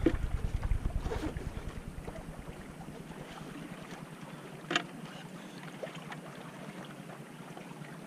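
Wind buffeting the microphone, dying down after about two seconds, over a steady hiss of small waves washing on the rocky shore. A single sharp click about halfway through.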